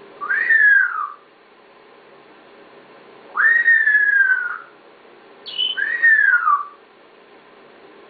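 African grey parrot whistling: three separate whistles, each sweeping quickly up and then sliding down, the middle one the longest.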